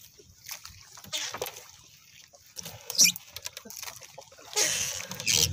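A wet nylon gill net being hauled aboard and cleared by hand: water splashes and the net rustles against the hull in irregular bursts. The sharpest splash comes about three seconds in, and a longer spell of splashing follows near the end.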